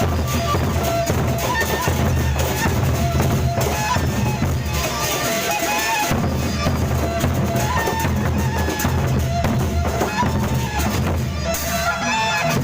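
Gendang beleq ensemble playing: large drums beating steadily under a high wind-instrument melody, with metallic cymbal and gong shimmer.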